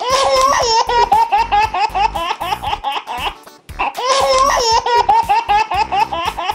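A baby laughing in quick, gleeful, high-pitched peals, set off by paper being torn in front of her. The same burst of laughter plays twice, the second time starting about three and a half seconds in.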